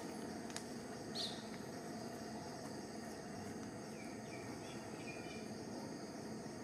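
Forest ambience: a steady insect drone over an even hiss, with a short high chirp about a second in and a few faint short whistled notes after about four seconds.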